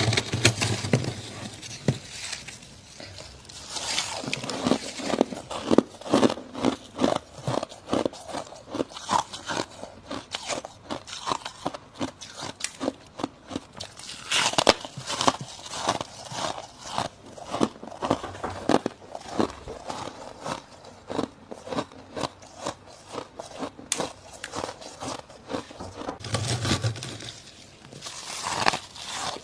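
Dry, squeaky freezer frost being bitten and chewed in a fast, irregular run of crisp crunches. A low hum sounds briefly at the start and again near the end.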